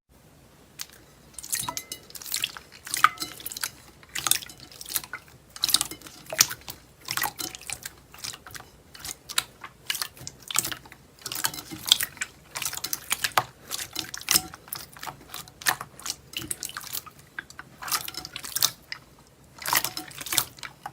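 Soft slime being squished and pressed by hand: irregular wet, sticky clicks and squelching pops, a few each second.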